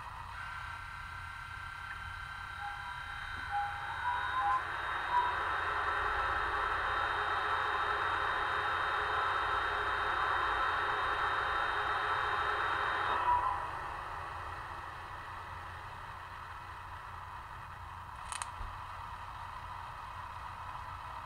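Sound decoder of a Roco H0 Vectron (BR 193) model electric locomotive, heard through its small onboard speaker, playing the standstill operating sound. Steady tones come on, a rush of cooling fans swells over a few seconds with a few short tones stepping up in pitch, then it runs steadily. About two-thirds of the way through it is switched off and dies away, and a single click comes near the end.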